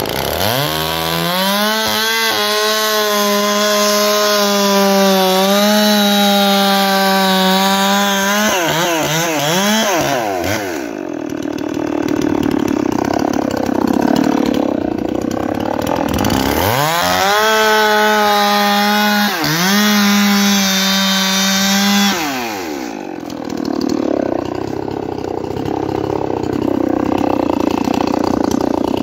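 Zomax ZM-6010 59 cc two-stroke chainsaw revved twice to a high, steady full-throttle whine, about eight seconds the first time and five the second, dropping back each time to a lower, rougher running. Its chain is cutting into a palm trunk.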